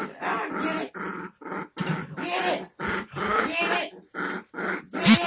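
Dogs growling in short, rapid bursts while tugging on a rope toy, with a louder, sharper burst near the end.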